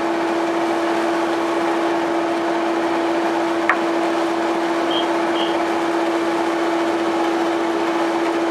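Steady drone of a boat's engine: a constant hum over a wash of noise, with a single sharp click about three and a half seconds in.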